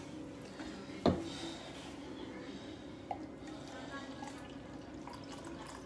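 Last of the chicken broth dripping from a measuring cup into an enameled cast-iron Dutch oven, with one sharp knock about a second in, then faint handling sounds and a small click.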